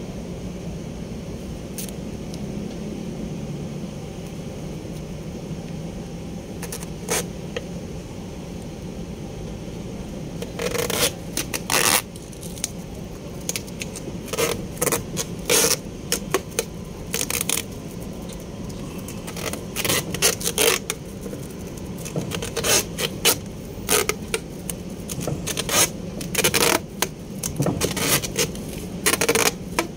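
Duct tape being pulled off the roll in many short, sharp rips, starting about ten seconds in and going on in irregular bursts as it is wound around the end of a wooden plank, over a steady low hum.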